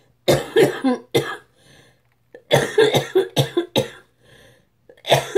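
A woman's cystic fibrosis cough: fits of several rapid coughs in a row, with short pauses between the fits.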